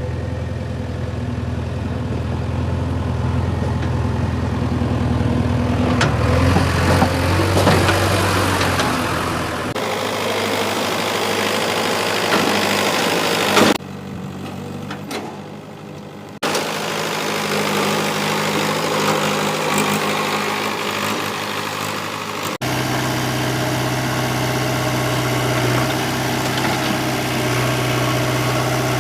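Diesel engines of earthmoving machinery and a tractor running steadily, in several clips that change abruptly about a third of the way in, around halfway and about three-quarters in. A stretch of a few seconds around halfway is quieter.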